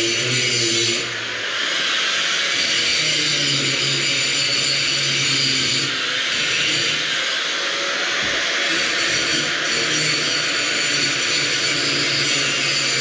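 Angle grinder running continuously, a steady high whine over grinding noise.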